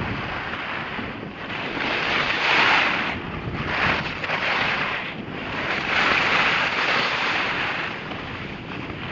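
Wind rushing over the microphone as the camera rides downhill, with the snow hissing under the edges. The hiss swells and eases every second or two, with the turns.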